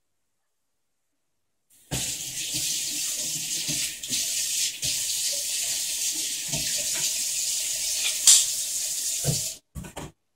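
Water running steadily from a tap, turned on about two seconds in and cut off shortly before the end, followed by a couple of short knocks.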